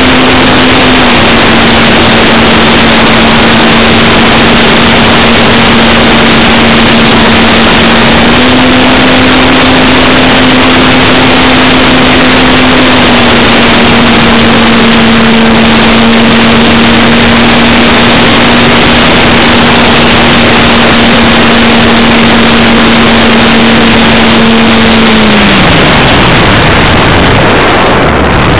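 Parkzone T-28 Trojan RC plane's electric motor and propeller humming steadily under a loud rush of wind on the onboard camera's microphone. The pitch steps down and up slightly a few times with the throttle, then slides down near the end as the throttle is pulled back.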